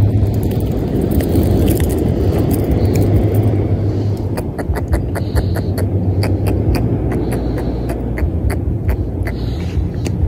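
Steady low rumble, with a run of light, sharp ticks about three a second beginning about four seconds in.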